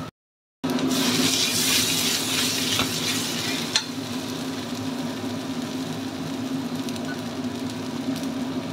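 Ground spice paste sizzling in hot oil in a wok while a metal spatula stirs it. The sound drops out for half a second just after the start. There is one sharp clink of the spatula against the wok nearly four seconds in.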